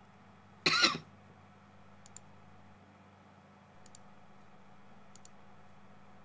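Computer mouse clicks, three quick double-clicks a second or two apart, faint over a low steady hum. About half a second in comes one brief, much louder noise.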